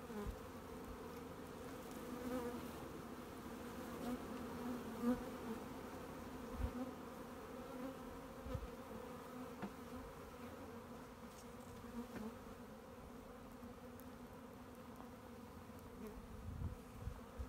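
Honeybee swarm buzzing in a steady hum around an open hive box as its frames are lifted, the bees freshly hived and already starting to work. A few light knocks of wooden hive frames being handled, the sharpest about five seconds in.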